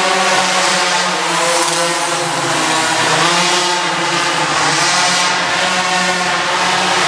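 Go-kart engines running on an indoor karting track, their pitch rising and falling repeatedly as the karts speed up and ease off around the corners.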